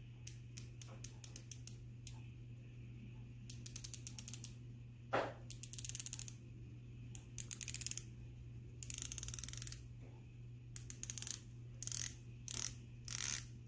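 Bezel of a Zelos Swordfish 40mm diver watch being turned by hand: short runs of rapid ratcheting clicks, about eight turns with pauses between them. A single louder knock comes about five seconds in.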